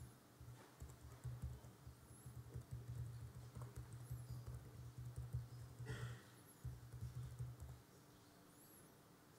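Typing on a laptop keyboard: a quick, uneven run of soft key taps, with a short pause a little after halfway, thinning out near the end.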